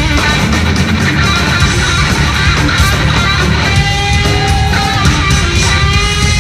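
Heavy metal band playing live: distorted electric guitars over bass and drums. About four seconds in, held guitar notes ring out above the riff.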